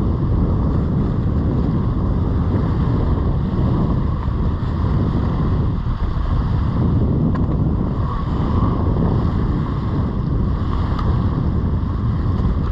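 Steady wind buffeting the microphone, with the wash of surf beneath it.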